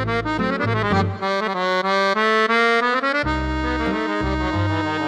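Bugari EVO B55 digital chromatic button accordion playing in an accordion voice: a quick melody over alternating bass notes, then a long held chord from about three seconds in.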